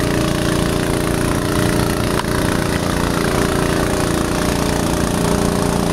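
Engine-driven pump running steadily at a constant pitch, draining floodwater from a parking lot.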